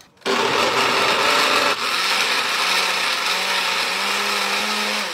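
Countertop blender switching on suddenly just after the start and running steadily, pureeing roasted tomatillos, chilies, garlic, chicken broth and toasted tortillas into a thick green salsa; the motor starts winding down near the end.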